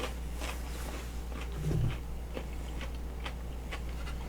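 Close-up mouth sounds of chewing and biting food: a scatter of small wet clicks and crunches, with a brief low hum a little under two seconds in.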